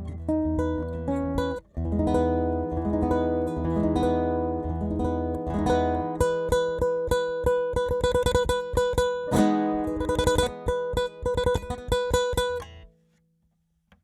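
Yamaha nylon-string acoustic-electric guitar being played: held chords with a deep bass for about six seconds, broken by a brief gap, then a run of quick, separate strokes that stops about a second before the end.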